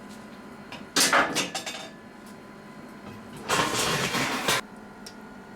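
Heated steel gear hob quenching in oil: two bursts of crackling sizzle as the hot metal is worked in the oil, about a second in and again for about a second from the middle, as the steel hardens.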